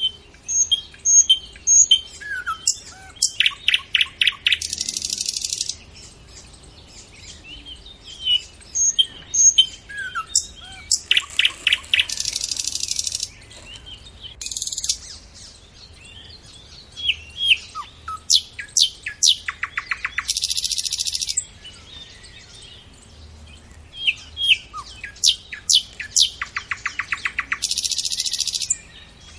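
A bird singing loud, repeated phrases. Each phrase runs from chirps into a rapid trill and ends in a harsh hissing note, and it comes four times, about every eight seconds.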